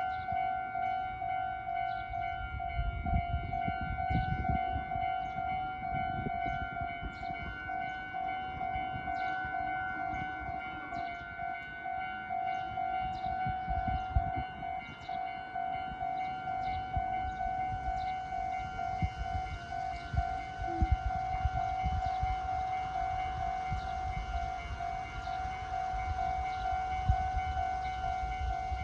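Japanese electronic railroad crossing bell ringing, a steady repeating "kan-kan" ding, while a Meitetsu train rumbles past underneath it.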